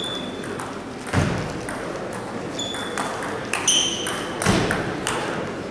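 Table tennis doubles rally: the celluloid ball clicking back and forth off bats and table at an uneven pace, several hits ringing with a short high ping. Two heavier thuds come about a second in and again past four seconds.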